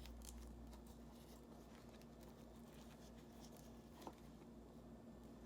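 Near silence: room tone with a steady low hum and a couple of faint small clicks.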